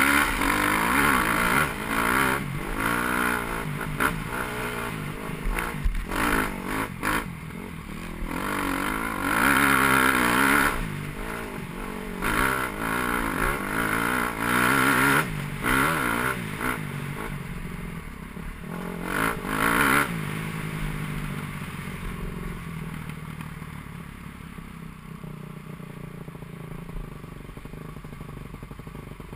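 Dirt bike engine revving up and backing off again and again under throttle as the bike climbs a muddy trail. About two-thirds of the way through it settles into a quieter, steadier run.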